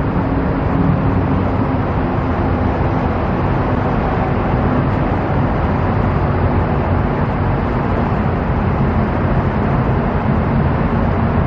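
Steady, loud traffic noise: vehicles running past, with a low engine hum underneath.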